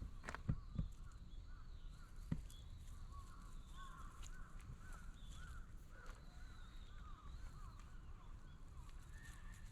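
Birds calling faintly outdoors, a run of short repeated rising-and-falling notes, with a few soft knocks in the first couple of seconds.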